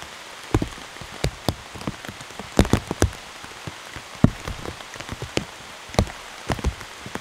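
Rain falling in a forest: a steady hiss with large drops striking close by at irregular moments, often several in a second.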